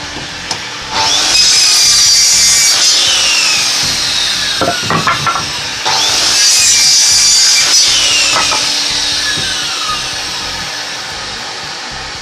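Circular saw running a 190 mm TCT blade through hardwood in two passes. Each starts sharply with a high whine that falls slowly in pitch over about four seconds. There are a few knocks about midway.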